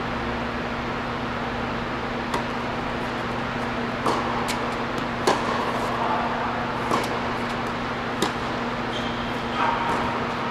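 Tennis rally on an indoor hard court: sharp pops of racket strikes and ball bounces come every second or so, with a few short squeaks. A steady low hum runs underneath.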